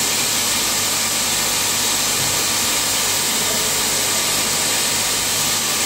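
Steady hiss with a low hum from the equipment of a running helicon RF plasma source.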